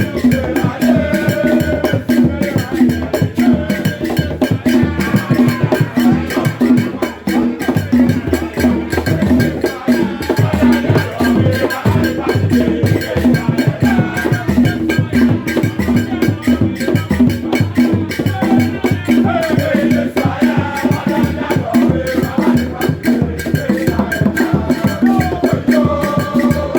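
Loud music with fast, dense percussion and a steady beat, a low held note, and a gliding melody line over it.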